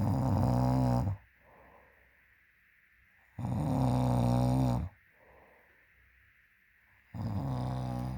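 A woman snoring loudly: three long, rasping snores about three and a half seconds apart, with faint breaths in between.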